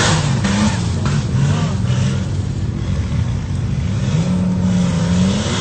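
Off-road 4x4's engine revving up and down, its pitch rising and falling several times, then holding steadier for about a second before climbing again near the end.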